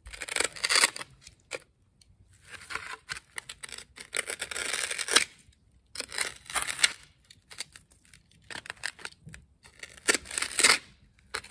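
Foam board being cut and scraped into shape, in irregular bursts of scraping strokes with short pauses between them.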